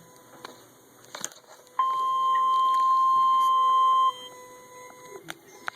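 NOAA Weather Radio warning alarm tone: a single steady tone of about 1050 Hz, held for a little over two seconds from about two seconds in, signalling that a weather warning follows. A few faint clicks are heard before and after it.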